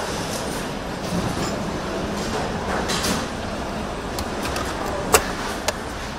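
Steady hum and clatter of a car assembly hall, with two sharp clicks near the end.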